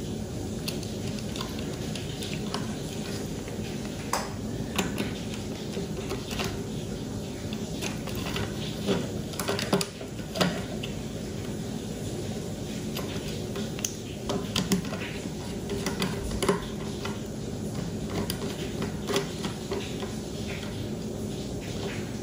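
Small scattered clicks and rustles of wires being handled and worked out of the screw terminals of a 3D-printer mainboard, over a steady low hum.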